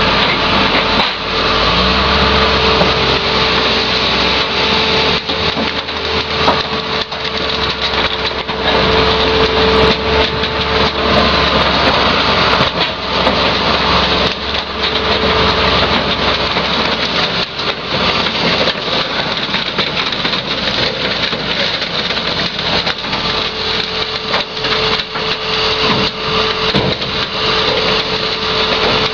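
Diesel engine of a John Deere 544J wheel loader and the car crusher running hard, with a steady hum over the engine noise and frequent metal clanks and crunches as scrap cars are pushed and lifted into the crusher.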